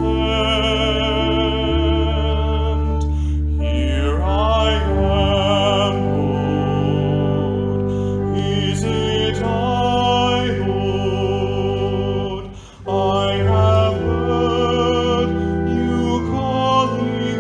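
Music: a melody with strong vibrato over sustained low chords. It breaks off briefly about two-thirds of the way through, then resumes.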